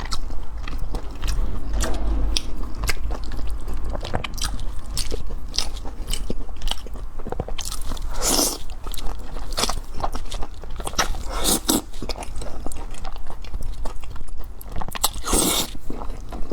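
Close-miked eating: a person biting and chewing, with a continual run of moist crunchy clicks and crackles and a few louder bites about eight, eleven and fifteen seconds in.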